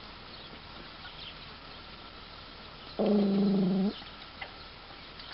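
A single moo from Holstein cattle about three seconds in: a steady, even-pitched call just under a second long that stops abruptly. Faint chirps of small birds sound behind it.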